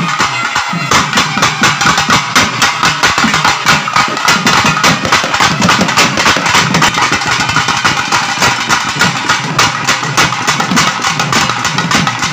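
Loud traditional festival drumming with a fast, steady beat, over a continuous higher-pitched musical sound.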